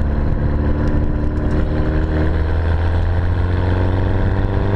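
The Mini-based A-series four-cylinder engine of a Mosquito three-wheeler kit car running steadily, on its first run after a complete restoration.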